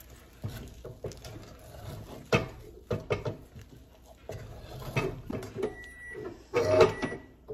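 A wooden spoon beating and stirring thick dhido (stiff flour porridge) in a saucepan: irregular scraping and knocking strokes against the pot, loudest near the end, as the dough is worked smooth and lump-free. A faint steady high tone joins in during the last couple of seconds.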